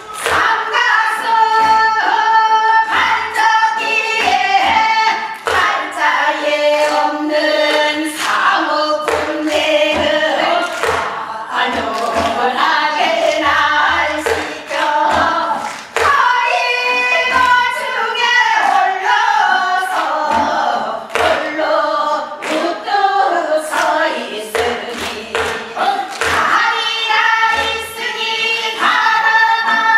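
A group of singers performing Gyeonggi-style hwimori japga, a fast, patter-like Korean folk song, together in unison, with sharp percussive strokes keeping the beat.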